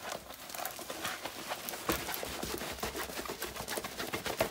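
Diamond painting canvas with its plastic cover film being rolled backwards to make it lie flat, rustling with many small irregular clicks.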